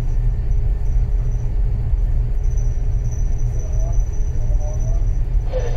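Steady low rumble aboard a container ship under way, with a faint steady high-pitched whine above it.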